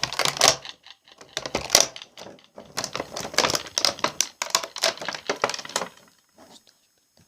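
Close-up crackling and crinkling, as something is handled, crumpled or tapped right at the microphone in irregular clusters, with short pauses around 1 s and 2.5 s in. It stops about 6 s in.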